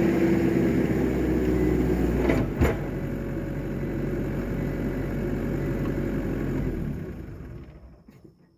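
New Holland skid steer's engine running steadily, with a single sharp clunk about two and a half seconds in. The sound dies away over the last second or two. The machine is stuck in a slow, reduced-power mode by a fault code.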